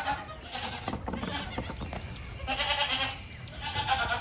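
A group of young goat kids bleating, several calls overlapping one after another.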